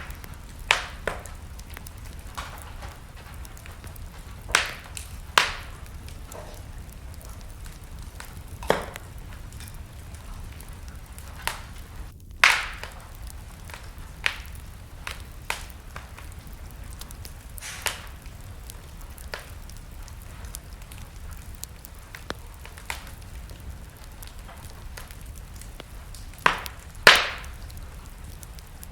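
Wood fire burning in a fireplace: a steady low hiss with irregular sharp crackles and pops, a few seconds apart, the loudest about 27 seconds in.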